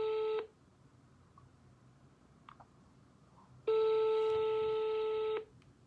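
Telephone ringback tone from a smartphone's speaker as an outgoing call rings: a steady tone that ends about half a second in, then, after about three seconds of quiet, sounds again for almost two seconds.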